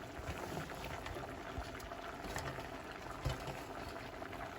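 Pot of broth and vegetables boiling on a stove over medium-high heat, a steady bubbling hiss, with a light knock about three seconds in.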